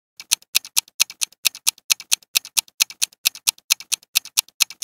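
Countdown timer sound effect: fast, even clock-like ticking, about four to five ticks a second, alternating stronger and weaker ticks.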